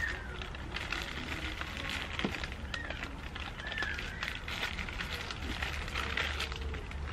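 MRE plastic pouches and wrappers crinkling as they are handled, with a few short bird chirps.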